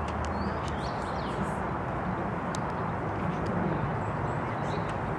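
Steady outdoor background noise, with a few faint short bird chirps about a second in.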